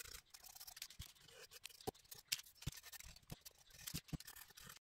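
Stiff paintbrush dabbing (pouncing) acrylic paint onto a small wooden birdhouse: faint, irregular taps and scratchy brushing, with a few light knocks as the wooden piece is handled on paper.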